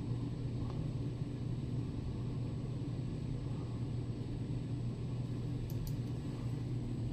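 Steady low hum of room background noise, with a couple of faint clicks a little under six seconds in, fitting mouse clicks as a file is chosen on the computer.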